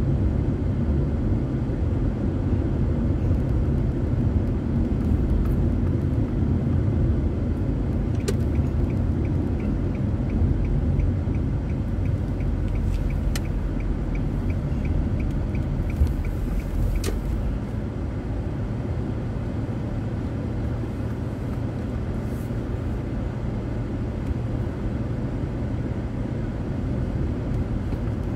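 Steady low road and engine rumble inside a moving car's cabin. From about a third of the way in, a turn-signal indicator ticks evenly a few times a second for about eight seconds as the car signals a turn at an intersection.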